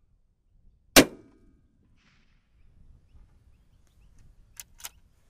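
A single shot from a Tikka T3x bolt-action rifle in .243 Winchester about a second in: one sharp crack with a short ringing tail. Two light clicks follow near the end.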